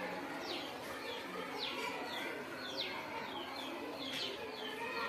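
Small birds chirping in the background: a series of short, high chirps that fall in pitch, repeating about once a second, over a steady hiss.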